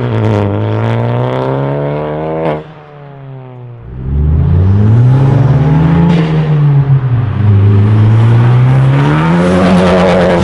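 A 10th-gen Honda Civic Si's turbocharged 1.5-litre four-cylinder through a Full Race cat-back exhaust, heard from outside as the car accelerates, the exhaust note rising and falling with engine speed several times. The sound drops away for about a second a few seconds in, then comes back as the car accelerates again toward and past the listener.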